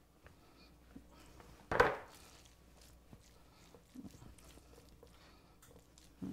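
Faint, soft scraping and squishing of a silicone spatula spreading thick ground-beef casserole filling in a baking dish, with one short, louder knock a little under two seconds in.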